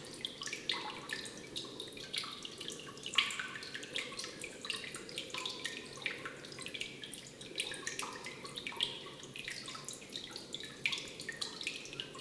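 Water dripping steadily, with many irregular plinking drops several times a second over a constant low background noise.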